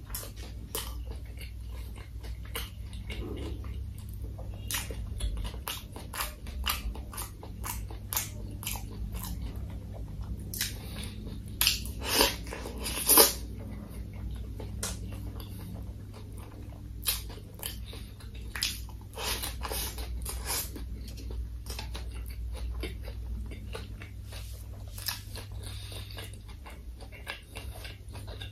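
Close-miked chewing and biting of crispy fried food such as fried chicken and cheese balls, with many small irregular crunches and mouth sounds; the loudest bites come about twelve and thirteen seconds in.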